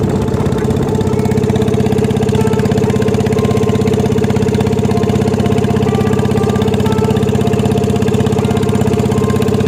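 Boat engine running steadily with a fast, even pulsing, driving a long wooden boat under way; it is loud and close, heard from on board.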